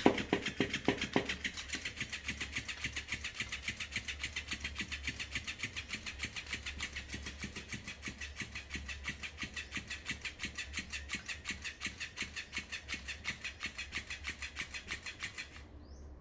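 Electric flopping-fish cat toy running, its motor wagging the tail with fast, even clicking, about five clicks a second, and a few louder knocks in the first second or so. It cuts off suddenly near the end.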